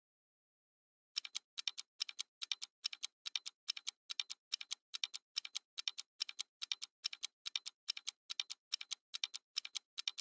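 Ticking-clock sound effect of a quiz countdown timer, steady clicks about three a second, starting about a second in.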